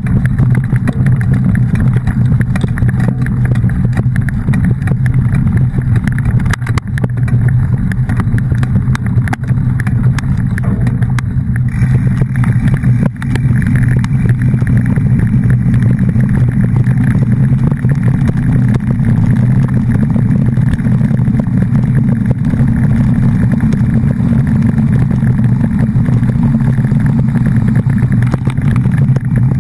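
A steady engine drone, loud and unbroken, with a slight change in tone about twelve seconds in.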